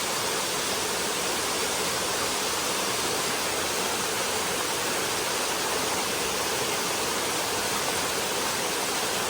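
Steady rush of a waterfall, an even unbroken roar of water.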